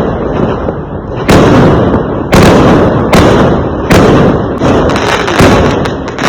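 Fireworks exploding: about six loud bangs, one roughly every second, each followed by a rumbling echo that dies away.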